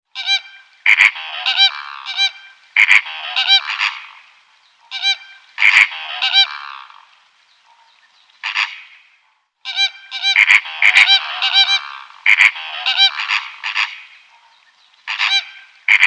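Geese honking: repeated loud calls in quick clusters, with a short pause near the middle.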